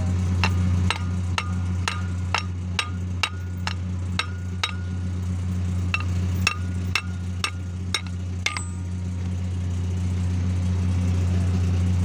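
Hammer striking the steel die head of a hydraulic crimping tool, about two ringing metal blows a second: ten in a row, a short pause, then six more. A steady low hum from the hydraulic pump runs underneath.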